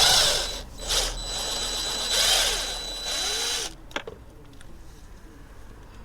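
Power drill used as a screwdriver, backing out screws. It runs in two goes with a brief dip about a second in and stops after about three and a half seconds, followed by a few light clicks.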